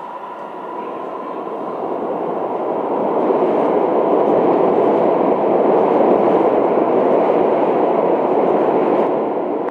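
New York City subway train running through the tunnel, a steady rumble that builds over several seconds to a loud peak and eases off near the end.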